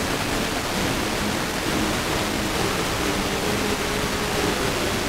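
FM receiver tuned to a weak, noisy long-distance signal: a steady loud hiss with faint classical music just breaking through it. The signal is only about 11 dBµV, carried in by an aurora opening.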